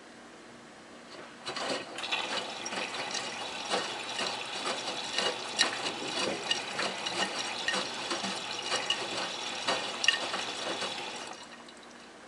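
Miele Touchtronic W3033 front-loading washing machine taking in water, a jet spraying and splashing into the drum. It starts about a second and a half in and cuts off shortly before the end.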